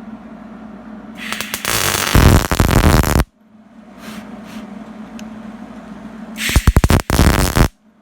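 Electric arc welding: two bursts of loud arc crackle, the first about two seconds long and the second, a second shorter, starting with a few stuttering strikes before the arc holds; each stops abruptly. A steady low hum runs between them.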